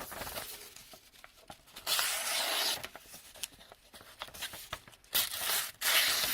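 The small blade of a Victorinox Swiss Army knife slicing through leather in two rasping cuts: one just under a second long about two seconds in, and a longer one near the end, with small clicks and rubbing between.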